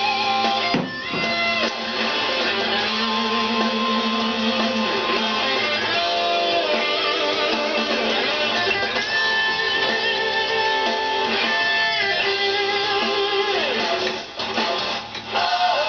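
Background music: a guitar-led rock instrumental passage with electric guitar.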